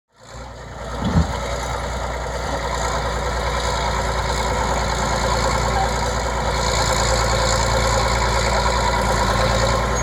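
Crawler bulldozer's diesel engine running steadily as it pushes a load of soil with its blade, with a single low thump about a second in.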